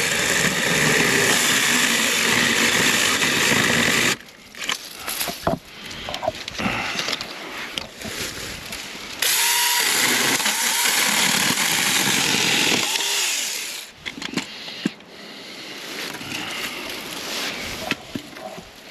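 Saker Mini cordless electric chainsaw with a 4-inch bar cutting through branches: two runs of about four seconds each, the motor and chain buzzing steadily while cutting. Between them and near the end come the rustle and crackle of dry brush being handled.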